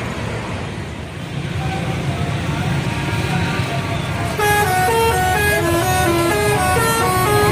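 Bus engine running with a steady low rumble, then about four seconds in a telolet horn, the multi-trumpet musical bus horn, starts playing a quick tune of stepping notes.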